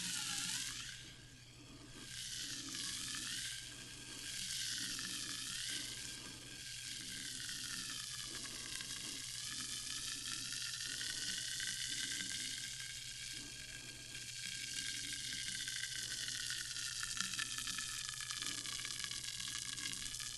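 Sparkling water fizzing: a steady crackling hiss of bursting bubbles, with a hollow tone that slowly shifts up and down in pitch.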